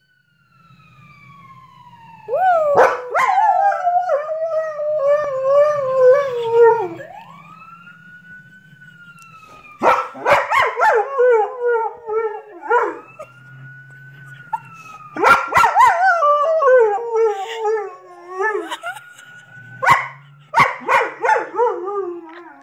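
White German Shepherd howling in four long bouts, each wavering and sliding down in pitch, in answer to a siren whose rising and falling wail shows in the gaps between the howls.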